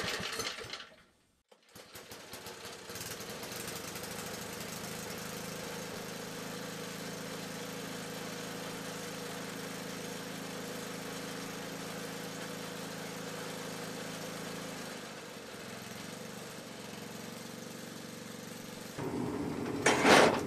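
The single-cylinder Tecumseh engine of an old Toro snowblower runs steadily on choke just after starting, following a short gap about a second in. It quietens slightly after about 15 seconds. Near the end a different, louder sound with a sharp loud burst takes over.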